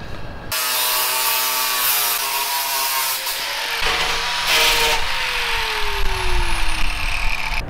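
Angle grinder with an abrasive disc grinding the edge of an expanded metal mesh disc: the motor starts about half a second in and runs with a harsh grinding hiss, then from about five seconds its pitch falls steadily as it spins down.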